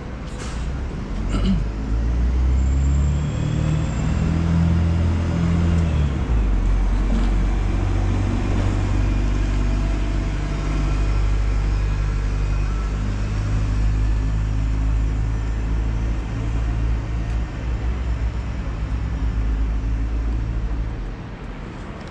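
A motor vehicle's engine runs close by amid city street traffic, a steady low hum whose pitch drops once about six seconds in.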